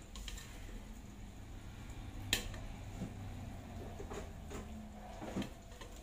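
Ceramic-fibre insulation being pulled and pried out of a mini melting furnace's metal housing: soft rustles and scattered light clicks, with one sharp click about two seconds in, over a low steady hum.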